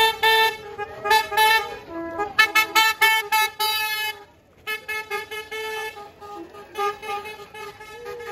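Golf cart horns beeping over and over in short toots at a few different pitches, in quick runs with a brief pause about halfway through.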